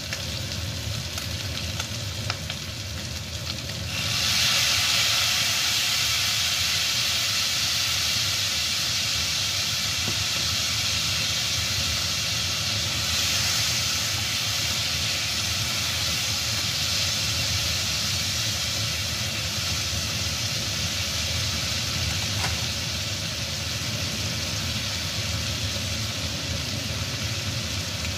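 Pork spareribs sizzling steadily as they fry in oil in a wok. The sizzle turns suddenly louder about four seconds in and stays loud.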